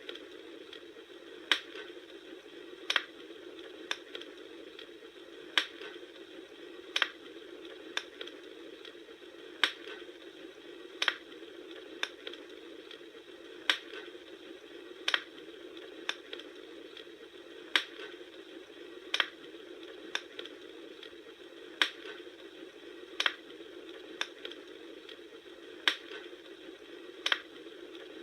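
Wood fire crackling: sharp pops about every second and a half over a steady low noise.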